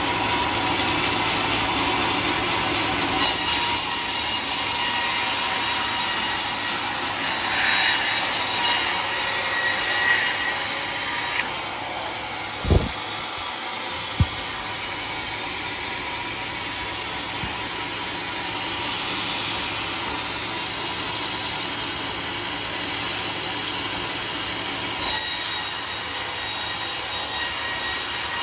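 Sawmill band saw with a new blade cutting lengthwise through a teak log, a steady loud sawing noise, with two sharp knocks about a second and a half apart midway through.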